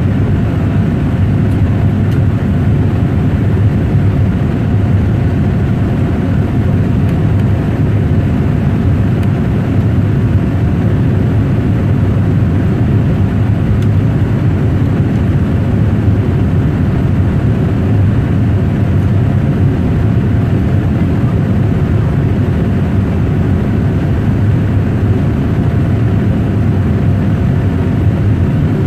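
Cabin noise of a Boeing 787 Dreamliner in flight after takeoff: the jet engines and rushing air heard from inside the cabin as a loud, steady, deep rush, with a few faint steady hums above it.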